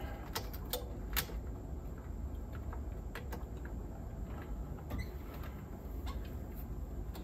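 Scattered light clicks and taps of a part being handled and fitted onto a cassette deck's tape transport mechanism, the sharpest about a second in, over a low steady background hum.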